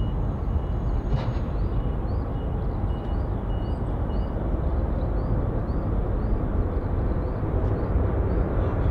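Airbus A350 airliner's jet engines running with a steady low rumble, heard across the airfield. A faint high chirp repeats about twice a second over it.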